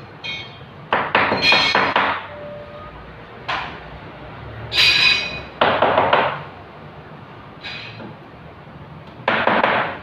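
Hammer tapping plastic wall plugs into holes drilled in a concrete wall, in about six short runs of quick blows with a slight metallic ring.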